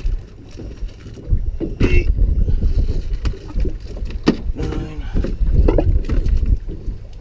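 Wind rumbling on the microphone aboard an open fishing boat, with several sharp knocks as yellowtail snapper are dropped into the boat's fish box.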